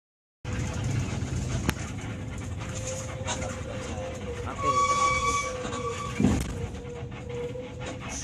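Bus running in heavy traffic, with a steady whine over the engine and road noise. About four and a half seconds in, a horn holds one high note for about a second and a half, and a short thump follows soon after.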